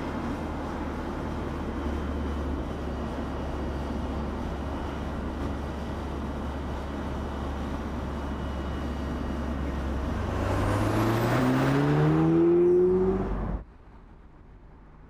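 Audi S3 Cabriolet's turbocharged 2.0-litre four-cylinder driving at speed with steady road noise, then the engine's pitch rises and grows louder as it accelerates, about ten seconds in. The sound cuts off suddenly a few seconds later, leaving a faint steady hum.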